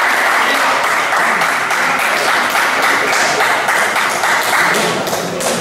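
Spectators clapping steadily, a dense patter of many hands that thins out near the end.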